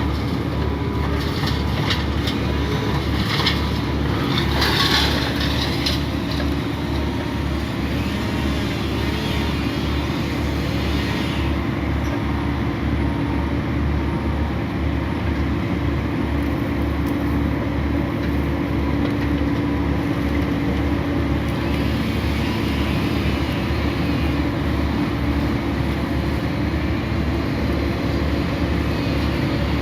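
Heavy machinery engine running steadily with a low, even pulse, with a few bursts of rougher, higher noise in the first several seconds.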